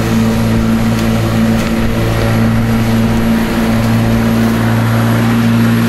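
Black & Decker 42 cm 1800 W corded electric rotary lawnmower running steadily while cutting grass: an even motor hum with the whirr of the blade.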